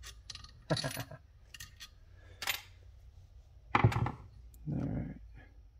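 Small metal carburetor parts clinking and tapping as they are handled and set into a metal muffin-tin parts tray: a scatter of short clicks and clinks, with a heavier knock about four seconds in.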